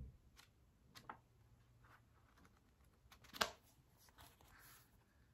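Near silence with a few faint taps and rustles of a small notepad being handled, the clearest about three and a half seconds in.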